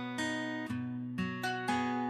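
Background music: a plucked string instrument playing a slow, even melody, one note about every half second, each note ringing and fading.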